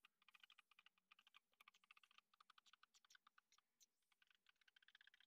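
Near silence with faint, irregular tiny clicks.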